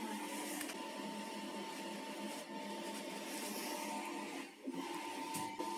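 A steady machine hum with a faint high whine running through it, dipping briefly about four and a half seconds in.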